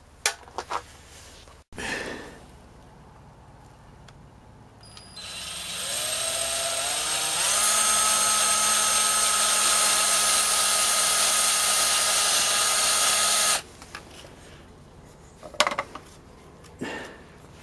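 Power drill with a 4 mm bit drilling through a plastic number plate to widen the hole for the screw. The motor spins up with rising pitch about five seconds in, runs steadily for several seconds, then stops abruptly. A few light clicks and knocks come before and after.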